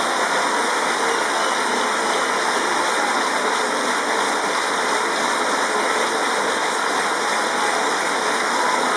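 A large audience applauding: a steady, dense wash of clapping.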